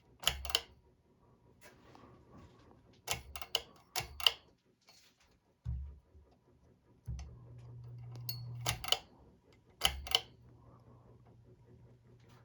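Switch clicks, mostly in quick pairs, repeated several times while a ceiling fan with spotlights is being tested, over a faint low electrical hum that grows louder for about a second and a half in the middle.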